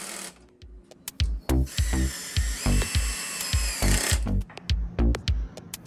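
WORKPRO 20V cordless drill driving a screw into a wooden slat. Its motor runs for a couple of seconds near the middle, under electronic music with a steady kick-drum beat that comes in about a second in.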